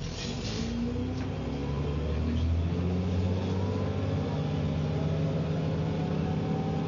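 Dennis Trident double-decker bus pulling away and gathering speed, heard from inside. The drivetrain note climbs steadily, with a rising whine from the rear axle that this bus was known for. A short burst of hiss comes right at the start.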